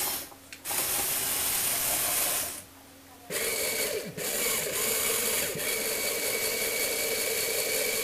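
Small electric motor and plastic gear train of a Lego Technic remote-control vehicle whirring in spurts. It stops for a moment twice in the first three seconds, then runs on steadily with a constant whine.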